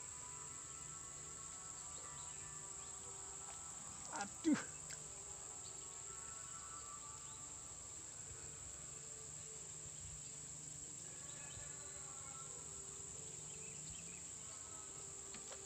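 Steady high-pitched drone of insects, with a brief sharp sound about four seconds in.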